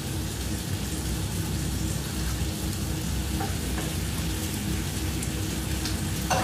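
Food sizzling steadily in a frying pan on a gas stove, with a few light clicks of a utensil against the pan in the second half.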